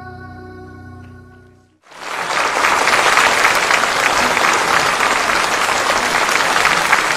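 The last held notes of the song's accompaniment fade away, then about two seconds in a studio audience breaks into loud applause.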